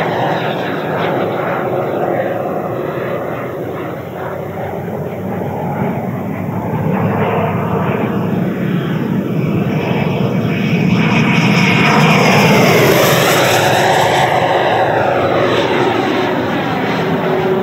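Electric ducted-fan jet model (120 mm JETFAN-120 PRO on a HET Typhoon motor) flying past, a continuous rushing whine with a swooping, phasing sweep, swelling to its loudest and shrillest about twelve seconds in as it comes closest, then easing off slightly.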